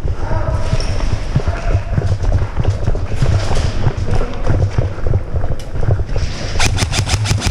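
Footsteps and thumping of a player running with the camera. Near the end comes a rapid burst of airsoft gun fire on full auto, about nine shots a second.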